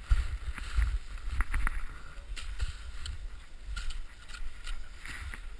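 Handling noise on an action camera: low rumbling with scattered clicks, knocks and rustles as the camera is moved about.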